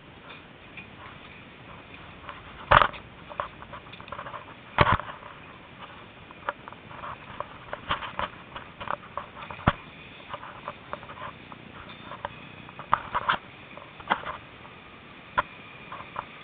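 Irregular clicks, knocks and rubbing of a phone being handled while its holder walks, with two louder knocks about three and five seconds in. A faint steady whine comes in about halfway through.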